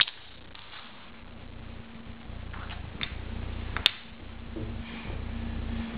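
A few sharp clicks and knocks from a stacking-ring toy being handled, the loudest about four seconds in, over a steady low hum.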